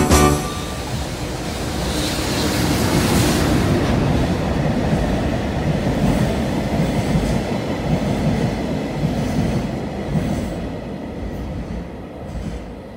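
Freight train passing close by: an EH500 electric locomotive followed by a long string of Taki 1000 tank wagons, a steady rolling rumble of steel wheels on rail with scattered clicks, fading away near the end.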